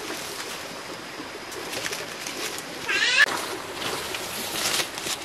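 Footsteps and rustling through dry leaf litter and undergrowth, with scattered crackles. About three seconds in, a short warbling bird call of quick rising-and-falling notes, the loudest sound here.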